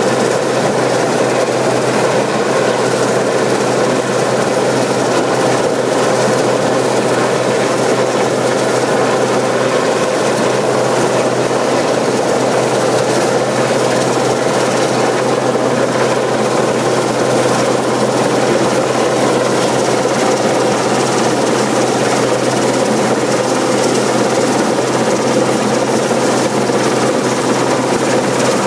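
RAF Westland Sea King rescue helicopter hovering close overhead: steady rotor and twin-turbine noise with a thin high whine.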